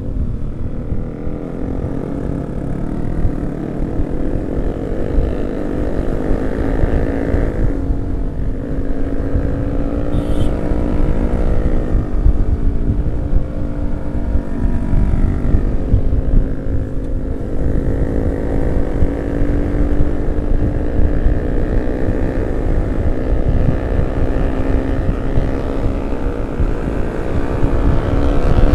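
Yamaha R15 V3 motorcycle's single-cylinder engine running at road speed, its note dipping and climbing again twice as the throttle eases and opens. Heavy wind rumble on the microphone runs underneath.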